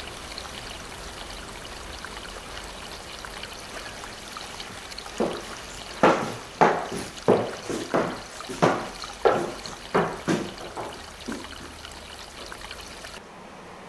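Footsteps of hard-soled shoes on a hard floor, about ten steps at walking pace, each with a short echo, over a steady hiss.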